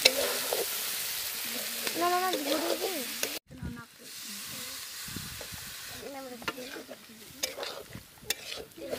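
Egg and potato curry sizzling in a steel kadai over a wood fire, with a metal spatula stirring and scraping against the pan. About a third of the way in the sizzle suddenly drops to a quieter simmer, and the spatula scrapes and clicks carry on.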